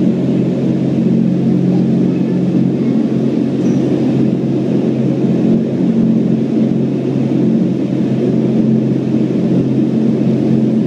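Indoor skydiving vertical wind tunnel running: a loud, steady rush of air over a constant low hum from the tunnel's fans.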